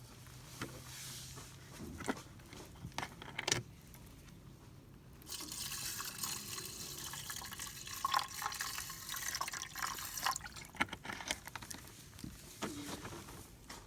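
Water being poured and sloshed in a metal mess tin, with scattered clinks and taps; a steady rush of pouring water runs for about five seconds from around five seconds in.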